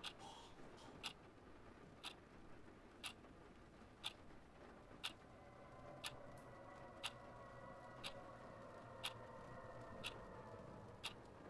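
Clock ticking slowly, about once a second. A faint steady hum with several held tones comes in about halfway.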